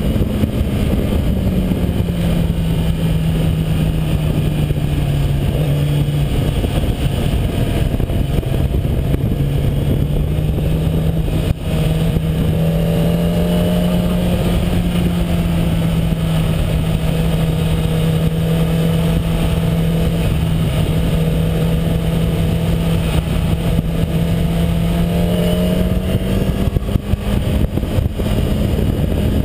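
Kawasaki ZX-10R's inline-four engine running at a steady cruising pitch through its stock exhaust, dipping slightly early on and rising again near the end, with wind rushing over the bike-mounted microphone.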